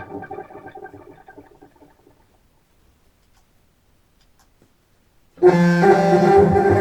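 Contrabass clarinet played through a Walrus Fable granular delay and heard over studio speakers: the delayed, stuttering repeats of a held note fade away over about two seconds, then after a few seconds of near silence a new note comes in suddenly, broken into choppy granular repeats.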